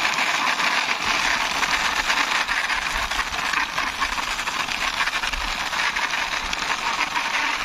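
Plastic toy double-decker bus pushed by hand along rough concrete, its wheels rolling with a steady gritty rasp made of many fine ticks.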